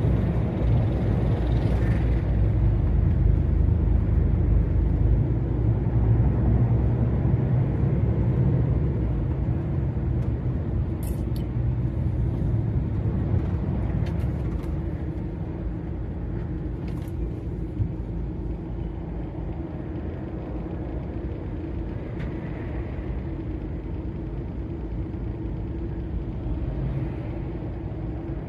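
DAF XF 480 lorry's PACCAR MX-13 six-cylinder diesel running at motorway speed, with a steady low rumble of engine and road noise that eases off and grows quieter from about nine seconds in. A few faint clicks come through in the middle.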